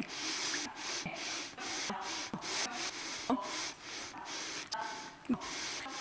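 A person sniffling and drawing sharp breaths through the nose over and over, a few sniffs a second. Between them are brief clipped vocal sounds that drop in pitch.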